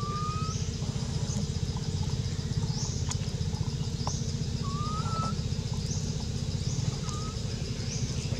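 A small engine idling steadily, a low drone with a fast even pulse. Short rising chirps sound over it, some higher ones repeating about every second and a half.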